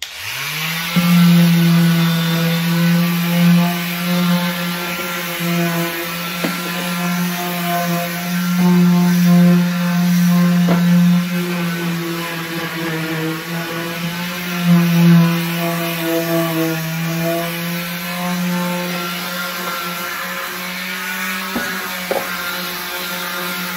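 Corded electric palm sander with 220-grit paper spinning up in the first second, then running steadily as it is pressed and moved over a textured plastic cooler, its hum wavering in loudness with the pressure.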